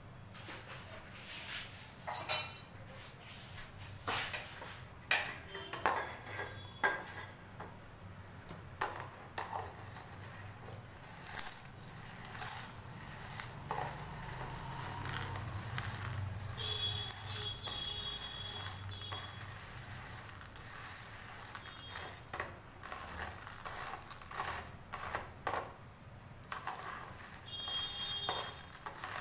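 Steel spoon scraping and clinking against a wire-mesh strainer and a steel bowl as fried split chickpeas (chana dal) are scooped and tipped into the bowl, in irregular taps and small rattles. There is one louder clank about eleven seconds in, and a few brief metallic rings.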